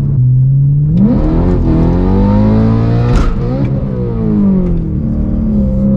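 BMW E92 M3's V8 heard from inside the cabin under hard acceleration: the engine pitch climbs steeply from about a second in, drops sharply at a gear change about three seconds in, climbs again, then eases off to a steady pitch near the end.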